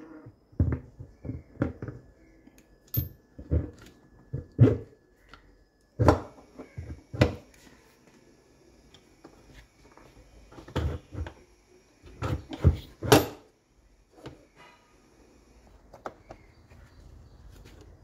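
Irregular knocks and clunks of a washing machine's clutch/gearbox assembly, with its motor and steel mounting plate, being handled and seated against the plastic tub base, in short clusters with quiet gaps between.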